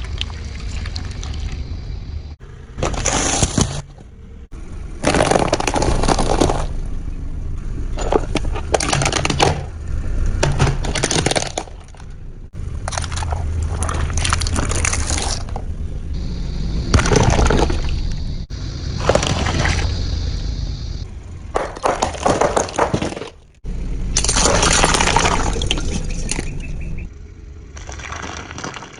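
A car's tyres crushing a series of objects, heard as repeated bursts of cracking and crunching with some wet splashing, over the steady low rumble of the engine. The audio is a string of short clips that cut off abruptly one after another.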